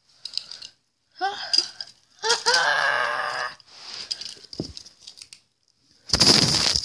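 A child's voice making wordless sounds, one of them held for about a second, then a short burst of rustling noise near the end.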